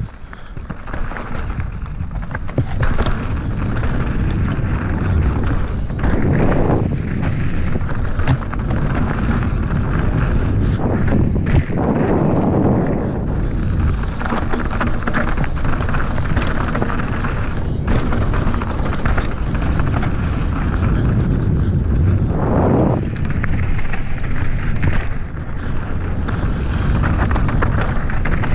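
Wind rushing over the camera microphone at riding speed, surging louder a few times, over a Transition Sentinel V2 mountain bike's tyres rolling on loose dirt and rock. Short clicks and knocks come from the bike rattling over bumps.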